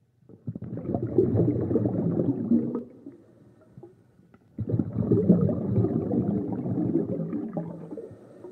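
Scuba regulator exhaust: a diver's exhaled air bubbling and gurgling out underwater. Two long breaths out, the second longer, with a quiet pause for the breath in between them.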